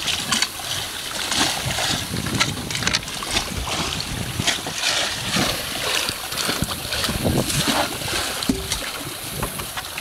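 Gear being rummaged through in a small boat's storage compartment: irregular knocks, clunks and plastic rustling as items are moved and pulled out.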